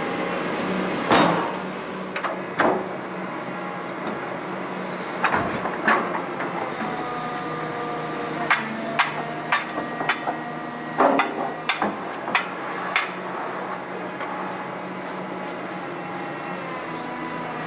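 A wheeled excavator's engine runs steadily while its steel bucket works in a steel pit box, giving about a dozen sharp metal clanks and knocks at irregular intervals, most of them in the middle stretch.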